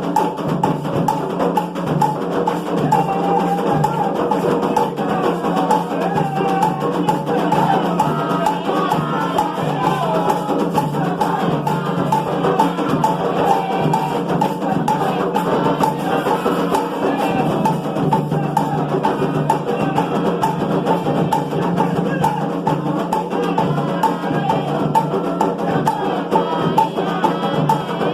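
Music with percussion.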